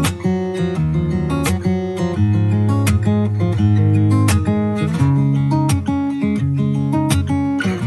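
Background music: an instrumental passage led by strummed acoustic guitar, with a steady beat and no singing.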